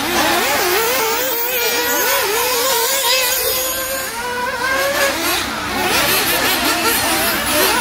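Several nitro RC cars' small two-stroke glow engines buzzing and revving up and down around the track, their high pitches weaving over one another.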